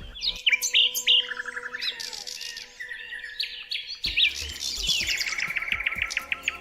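Several birds chirping and singing over one another, in quick high whistled notes and sweeps. After a sudden change about four seconds in, one bird gives a fast trill of evenly repeated notes.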